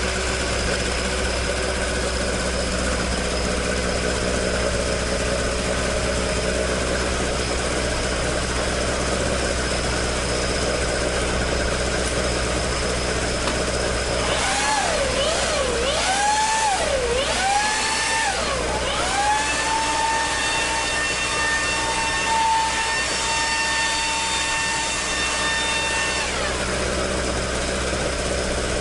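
Toyota AE86's 4A-G four-cylinder engine idling through its stock exhaust, with the exhaust leak repaired. About halfway through it is blipped three times, then held at raised revs for about six seconds before dropping back to idle.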